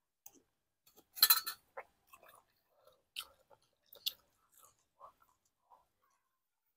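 A person chewing a mouthful of stewed meat close to the microphone, with one louder wet burst about a second in and then scattered small clicks and smacking mouth noises.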